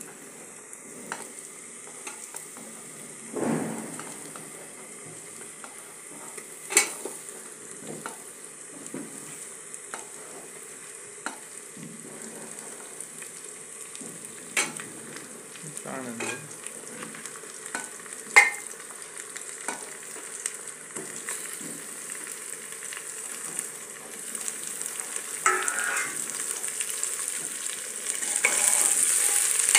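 Raw mutton pieces sizzling as they go into hot oil and whole spices in an aluminium pressure cooker, with a few sharp clinks of the steel ladle and bowl against the pot. The sizzling grows louder near the end as the meat is stirred in.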